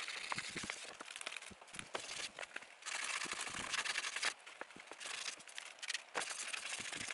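Wet sandpaper on a sanding pad rubbing across a plastic taillight lens, sanding off the yellowed oxidation. It makes a scratchy hiss in separate strokes of a second or so, with small clicks.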